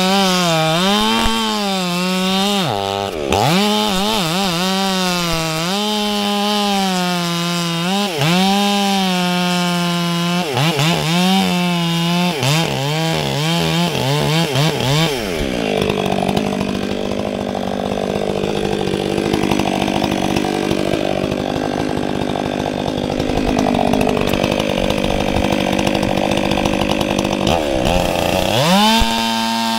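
Stihl MS 500i fuel-injected two-stroke chainsaw cutting into wood, its engine speed dipping again and again under load and picking back up. About halfway through it eases off to a lower running speed, then revs back up near the end.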